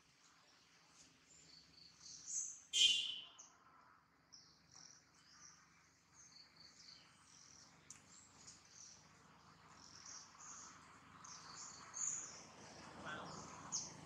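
Outdoor ambience of birds chirping, many short, high, twittering calls, with one brief, louder, high-pitched call about three seconds in.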